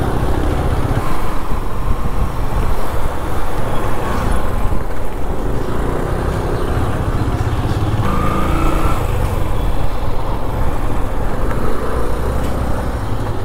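Motorcycle being ridden at road speed: its engine runs under a heavy, rumbling wind buffet on the microphone.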